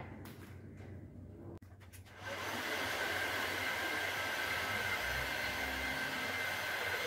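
A Bosch heat gun is switched on about two seconds in and runs steadily, a rush of blown air with a steady whine. It is blowing hot air onto the cricket bat's sticker to soften the glue so the sticker can be scraped off. Before it starts there are a few light knocks of handling.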